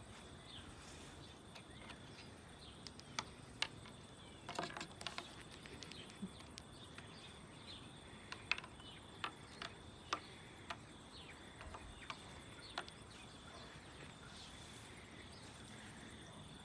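Faint, irregular light clicks and taps over a quiet hiss, with a faint steady high whine throughout.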